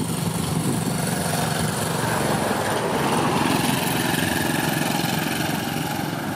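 A motor engine running steadily with an even low throb, growing louder about halfway through and easing off near the end.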